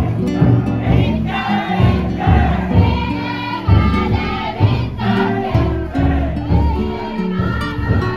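Many voices singing in unison with held notes, over a low drum beat that falls roughly once a second; it is taken here to be the futon daiko's taiko and its carrying song.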